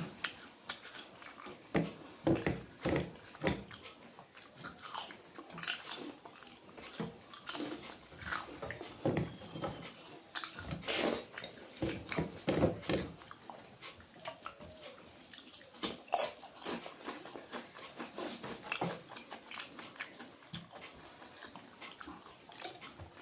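Close-up eating sounds: chewing and lip smacking, with irregular crunches and clicks.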